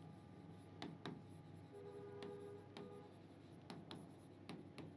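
Faint tapping and scraping of a hand writing a word on a classroom board, in a series of short strokes.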